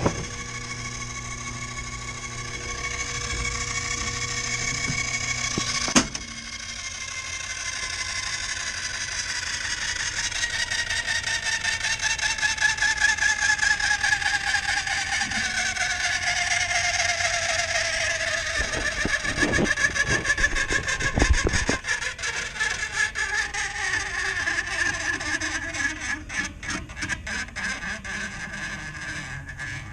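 Air handler's electric motor humming, then cut off with a sharp click about six seconds in, after which a whine falls slowly in pitch as the motor coasts down. The motor is spinning free because the blower belt is off and the blower bearing has come out. Light rattling near the end.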